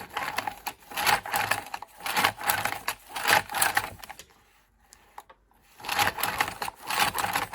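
Recoil pull-starter on a Honda 3.5 hp engine being pulled over and over: short rattling, ratcheting pulls of the rope, three in a row, a pause of about a second and a half, then more pulls, with the starter just reassembled and under test.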